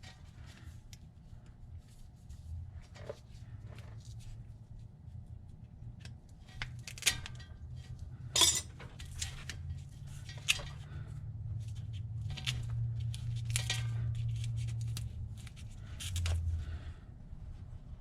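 Scattered metallic clinks and clicks of hand tools being handled while working on a car's wiring harness, with several sharper clinks about halfway through.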